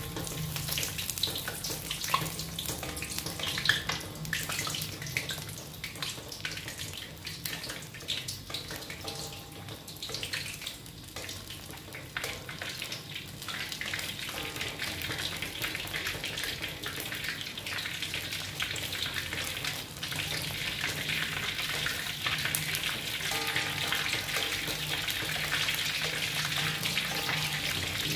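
Pork leg deep-frying in hot oil in a wok, sizzling with dense crackles and pops. The sizzle grows louder and thicker in the second half.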